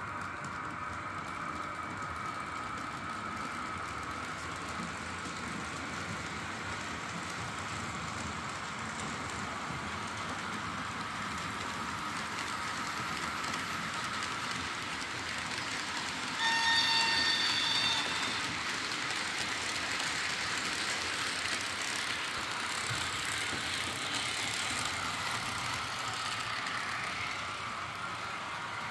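Märklin H0 model train running along the track with a steady rolling and motor noise. About halfway through, the locomotive sounds a single horn blast lasting about a second and a half.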